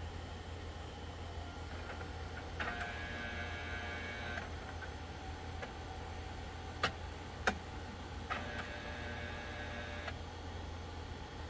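HP OfficeJet Pro 8710 inkjet printer's internal motors whirring in two short runs of nearly two seconds each, with two sharp clicks between them, over a steady low hum.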